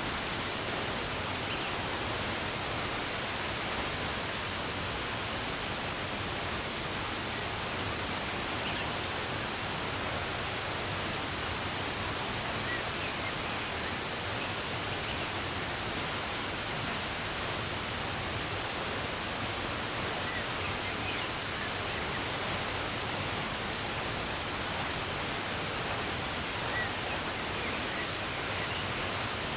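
Running water, a steady even rush. A few faint, short bird chirps come through now and then.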